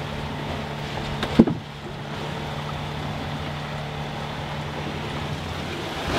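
Sailboat cabin noise under way: a steady low hum over a rushing hiss, with one sharp click about a second and a half in. The hum stops near the end.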